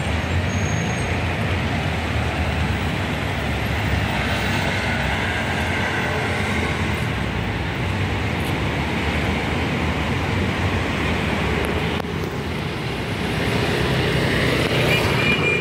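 Steady city road traffic: a low rumble and hiss of cars and buses running along the surrounding streets, swelling near the end as a vehicle passes closer.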